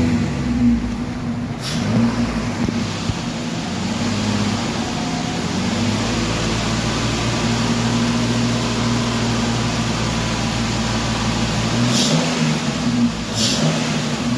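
Jeep Liberty 3.7-litre V6 engine running at a steady idle after a bad spark plug was replaced, its misfire cured and the engine running a lot smoother. Two short sharp sounds come near the end.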